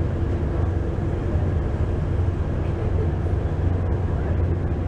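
Steady low rumble aboard a moving car ferry, its engines droning without change while the boat is under way.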